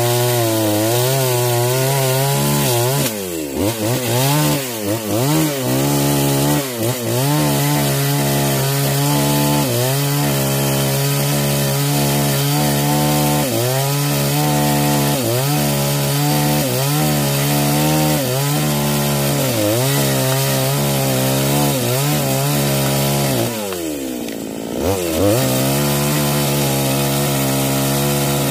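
New Newwest two-stroke chainsaw with a 22-inch bar running at high revs, cutting into the hard trunk of a sonokeling (Indian rosewood) tree. The engine note wavers up and down a few seconds in as it bogs and recovers in the cut, and near the end it drops briefly toward idle before revving back up.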